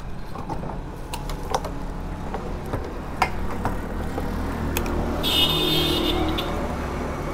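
A motorcycle's fuel tank being filled at a petrol pump: a steady low hum with scattered clicks and knocks, and a brief high hiss about five seconds in.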